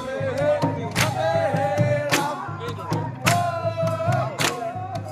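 A group of men singing together with long held notes. A sharp wooden knock keeps time about once a second, struck on the singers' bamboo staves.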